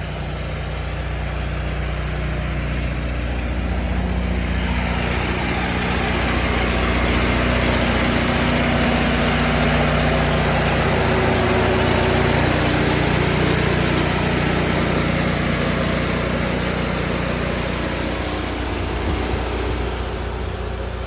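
Pro Cube pressure-washing skid's engine running steadily while its booster pump feeds a rinse, with a broad spray hiss that swells about four seconds in and eases off near the end.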